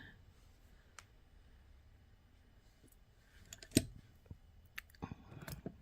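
Quiet room with a few scattered small clicks and taps, the loudest about four seconds in and several more near the end, from the beaded ball-chain earrings and their parts being handled.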